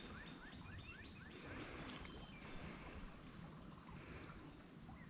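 Birds chirping over a quiet outdoor background hiss, with a quick run of short rising chirps in the first second and a half and scattered higher calls after.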